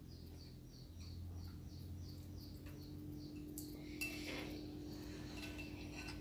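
A metal spoon stirring and clinking against a glass bowl of ginataang bilo-bilo, with one sharp clink about four seconds in and lighter taps after it. A run of high chirps, about three a second, fades out in the first two seconds, over a steady low hum.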